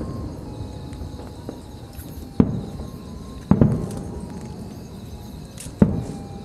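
Aerial fireworks shells bursting: three loud bangs, each trailing off in a low rumble, over the continuous rumble of other distant bursts.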